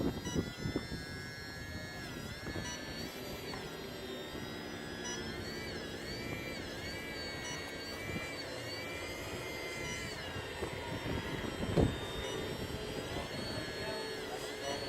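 Whine of the electric motors in radio-controlled construction models (a CAT loader and a Volvo A40 dump truck): several high tones rise and fall in pitch together. One knock comes about 12 seconds in.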